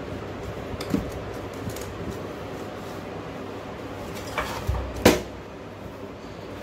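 Handling noises as a cut-open plaster cast and its cotton padding are pulled off a leg: a couple of soft knocks about a second in, a brief scrape, and one sharp click about five seconds in, over a steady background hum.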